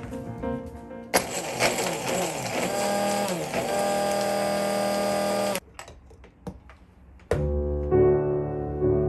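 Braun hand blender's chopper attachment running for about four and a half seconds, its blade chopping garlic cloves; the motor starts and cuts off abruptly. Background music plays before and after, with bowed strings coming in near the end.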